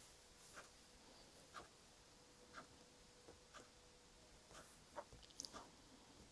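Near silence: faint room tone with soft, short ticks about once a second and a few light scratches near the end.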